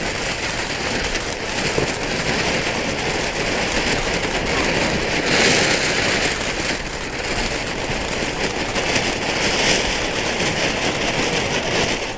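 Firework fountain spraying sparks with a steady, dense hiss and crackle, dying away at the very end.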